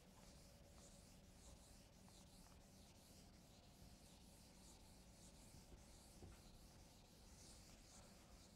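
Faint scratchy writing strokes, repeated a few times a second, over quiet room tone.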